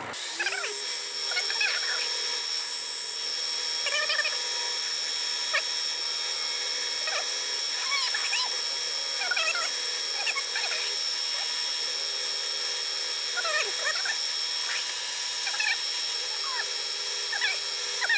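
Mini-mill spindle running with a number 21 twist drill cutting into an aluminium block: a steady high-pitched motor whine, with short squeaks every second or so as the drill bites.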